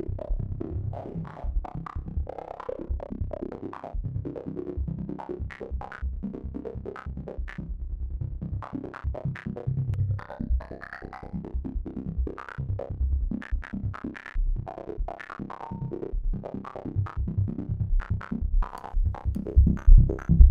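A distorted, chopped Xfer Serum synth patch, a liquid psytrance-style synth, plays a looping line over an electronic drum beat. Chorus is on, and a phaser is switched on partway through.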